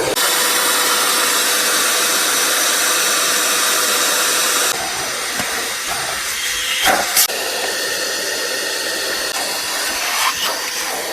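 The heater blower fan of a 1987 Pontiac Fiero GT, freshly cleaned of a mouse nest, running and pushing a steady rush of air with a faint whine. Its rush turns quieter and duller about halfway through, and a few short knocks follow.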